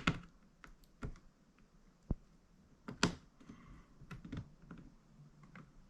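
Scattered sharp plastic clicks and taps, with faint scraping between them, as a plastic pry tool works at the laptop's battery connection to disconnect the battery.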